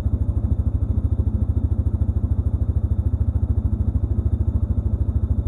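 A vehicle engine idling: a steady, rapid low throb at an even level.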